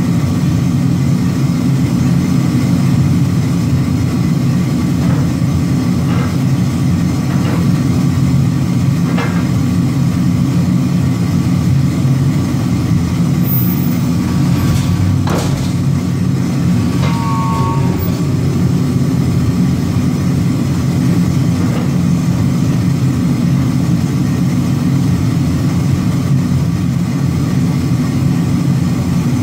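Power forging hammer running idle with a steady low drone and no blows struck. A few faint clicks come through, and a sharper knock about halfway through.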